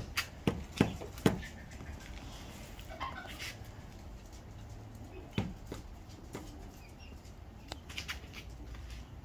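Chickens and chicks foraging, with a few sharp knocks and taps: four in the first second and a half, one in the middle and a small cluster near the end.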